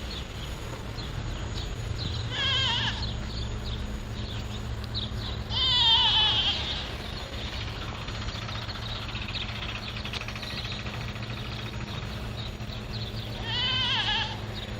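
An animal bleating three times, each call wavering in pitch, the middle one the loudest, over a steady low rumble.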